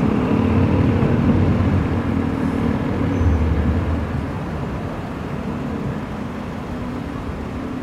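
JR electric train rumbling across the steel-girder railway overbridge, fading away after about four seconds as it leaves, over steady road traffic noise.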